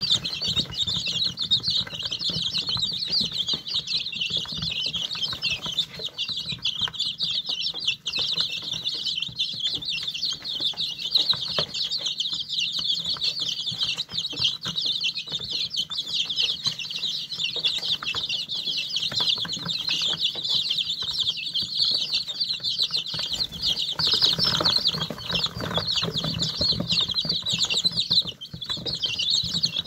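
A brood of young chicks peeping nonstop, many high, short chirps overlapping into a continuous chorus.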